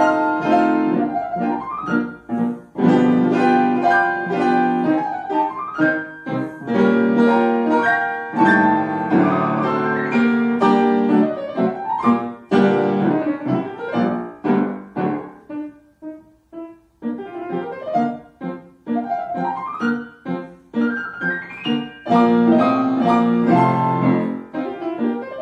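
Solo piano piece played on a Bösendorfer grand piano: quick rising runs and full chords, thinning to a quieter, sparser passage a little past halfway before building again.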